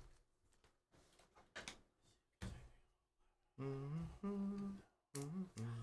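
A man humming a few low, steady notes that step up and down, starting about halfway through. Before that, faint clicks and slides of a stack of chrome trading cards being handled.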